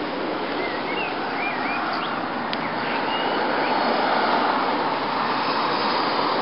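Steady road traffic noise that swells a little in the middle as vehicles pass, with a few faint high chirps in the first two seconds.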